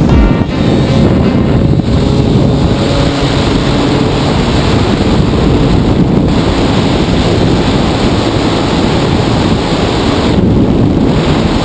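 Heavy wind buffeting on a helmet-mounted camera microphone while a 125 cc motorcycle is ridden at road speed, with the bike's engine faintly underneath the wind.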